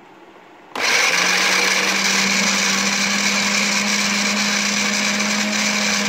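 Philips HR7762/90 food processor starting suddenly about a second in and running at speed with an empty bowl, making a loud, horrible, steady grinding noise over a steady hum from its drive. The owner traces the noise to dirty gears and old grease in the drive.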